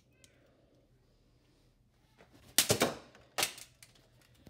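Pieces of a broken plastic computer mouse being handled: two short bursts of rapid clattering clicks and knocks, a little over halfway through and again a moment later.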